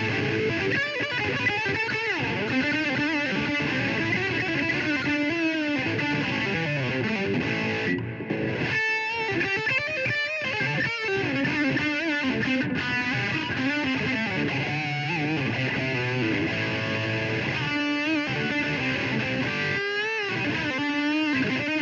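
Electric guitar being played, with bent and wavering notes; the playing breaks off briefly about eight seconds in.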